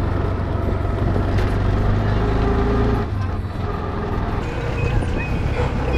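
Motor vehicle engine and road noise heard from inside the moving vehicle, a steady low rumble that dips briefly about halfway through.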